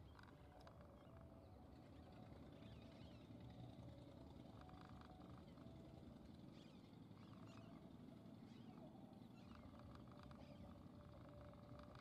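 Faint ambience of small birds chirping in the distance, a scattering of short high calls, over a low rumble and a faint steady hum.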